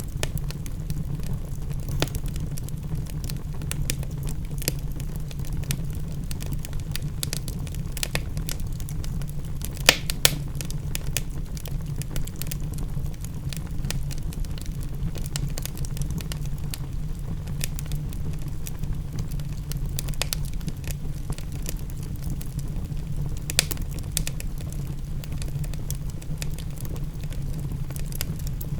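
Wood fire crackling in a fireplace: a steady run of small snaps, with louder pops about ten seconds in and again later. A steady low rumble runs underneath.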